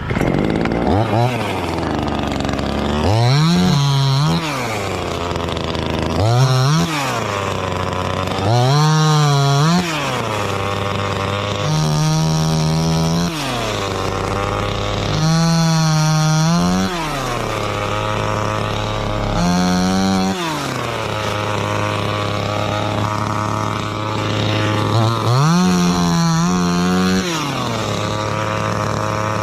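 Chainsaw revving up to full speed and dropping back to idle about seven times, cutting jackfruit wood.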